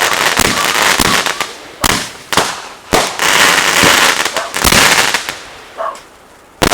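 Consumer fireworks going off: a fast run of sharp bangs and crackling that thins out about five seconds in, with one last bang near the end.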